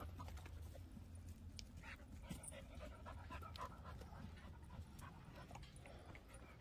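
Faint panting of a cocker spaniel, with scattered faint clicks and rustles.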